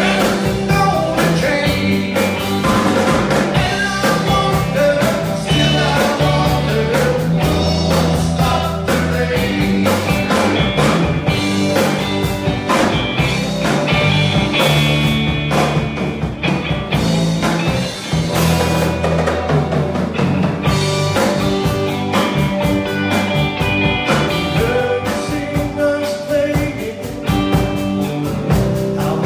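Live classic rock band playing: electric guitars, bass guitar and drum kit, with a driving drum beat throughout.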